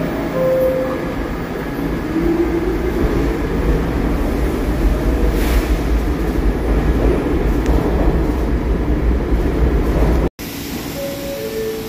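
R68A subway train rolling into the station and slowing, a loud steady rumble with faint whining tones from the running gear. About ten seconds in, the sound cuts out for an instant and comes back quieter.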